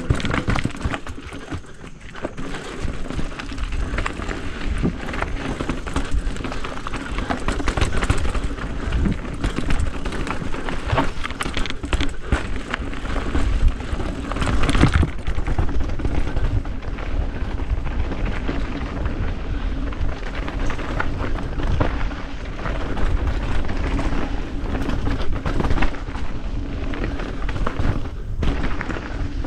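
Vehicle driving over rough ground: a steady low engine drone under constant rumbling, with frequent knocks and rattles.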